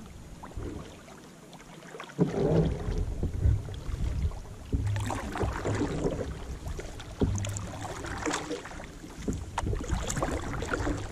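Kayak paddle strokes: the blades dip and splash in the water about once a second, with wind rumbling on the microphone.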